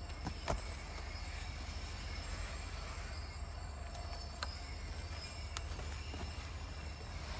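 Chainsaw running steadily through a milling cut along a guide track, with a steady low hum and a few faint clicks.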